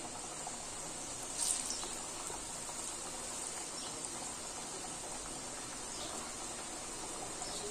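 Lauki kofte (bottle-gourd and gram-flour dumplings) sizzling as they deep-fry in hot oil in a kadhai: a steady crackling sizzle, with one brief louder crackle about a second and a half in.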